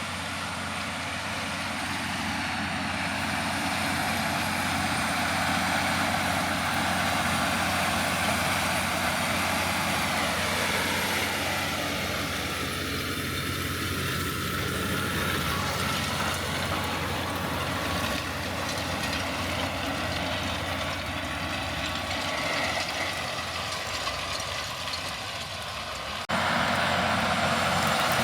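Cotton picker running steadily under harvest load. The sound steps up suddenly near the end.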